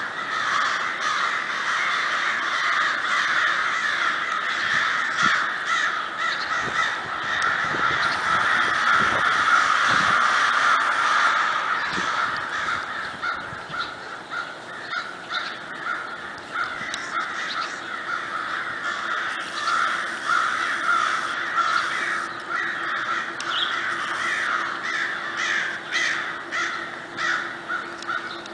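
A large flock of crows cawing all at once in a dense, overlapping chorus. It is loudest about ten seconds in, then thins to more separate caws.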